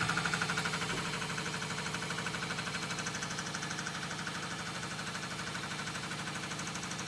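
Combination lathe-mill running with its tooth-profile disc cutter milling the teeth of an aluminium toothed pulley, a steady machine sound with a rapid, even pulsing.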